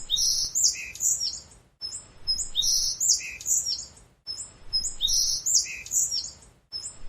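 Bird chirps and whistles: the same short phrase of high notes and falling whistles plays three times over, each time cut off abruptly, as a looped clip.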